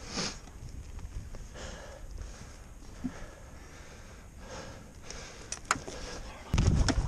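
Close-up breathing and sniffing of a climber wearing the camera, with clothing rustle and scuffs as he clambers over a roof parapet. A few sharp knocks and scrapes come near the end, followed by a loud low rumble on the microphone.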